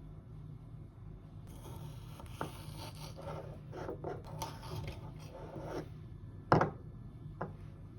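Objects being handled: scraping and rubbing, a few light clicks, and one sharp knock about six and a half seconds in, with a smaller knock just after, over a steady low hum.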